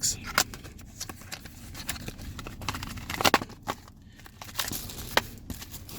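A small cardboard product box being opened by hand: irregular clicks, taps and scrapes from the flaps and the packaged cable inside, with a louder knock about three seconds in.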